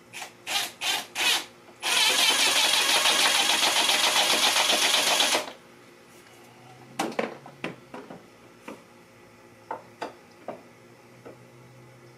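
A cordless drill runs in four short bursts, then steadily for about three and a half seconds before stopping. Light clicks and knocks of handling follow.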